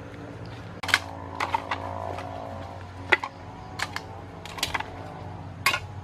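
Several sharp, irregular knocks and clicks from handling dry sticks and cooking utensils, over a steady low hum.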